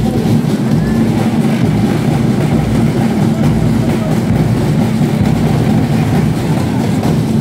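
Snare drums and bass drums played together by a group of child drummers, loud, dense and steady processional drumming.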